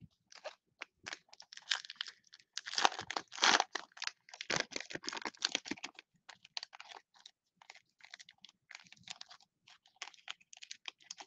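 Foil trading-card pack wrapper being torn open and crinkled by hand, with the loudest crackling about three to six seconds in and lighter crinkling after.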